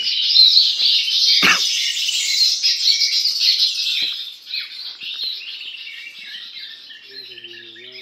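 Many small birds chirping densely in a steady high chatter, loud for the first few seconds and then fading to a fainter chatter. A single short thud cuts in about one and a half seconds in.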